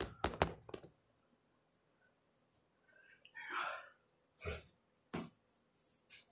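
Handling noise: a quick cluster of knocks and clicks as a hand touches the phone camera, then a short breathy rush about three and a half seconds in and two sharper knocks soon after.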